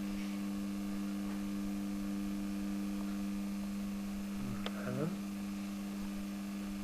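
Steady electrical mains hum, two low unchanging tones, with a brief voice sound about five seconds in.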